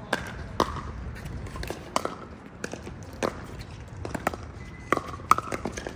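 Pickleball paddles striking a plastic ball in a rally: sharp pops roughly every one to one and a half seconds, with two quick ones near the end, among fainter pops.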